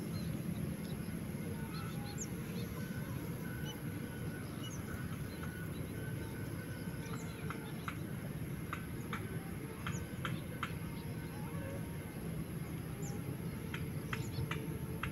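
Birds chirping in short, scattered calls over a steady low rumble, with runs of quick sharp ticks about halfway through and again near the end.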